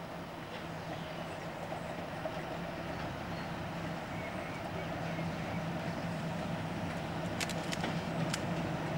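English Electric Class 37 diesel locomotive's V12 engine running with a steady low hum as it approaches hauling coaches, growing louder as it draws closer. A few sharp clicks sound near the end.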